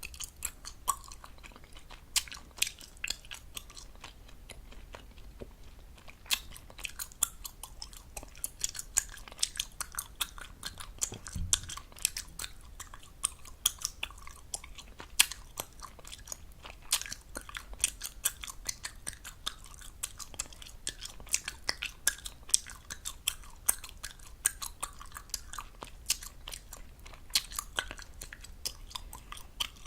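Gum chewed fast and close to the microphone: a dense run of wet smacks and sharp pops, several a second.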